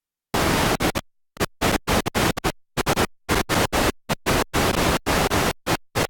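Loud bursts of hiss-like static, cutting on and off abruptly many times with dead silence between them: a digital audio glitch.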